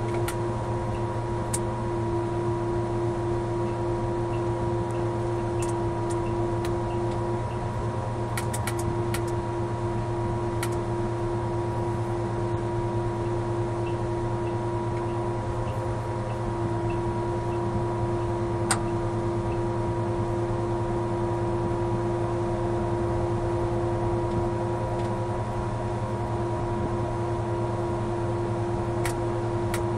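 Liebherr LR1200 crawler crane's diesel engine running steadily: a low hum with a steady whine above it, and a few faint clicks.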